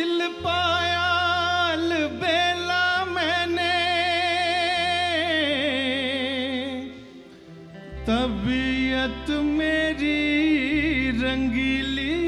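Male singer's wordless melodic vocal with heavy vibrato, sung live over a held keyboard chord and bass, in two long phrases with a short break about seven seconds in.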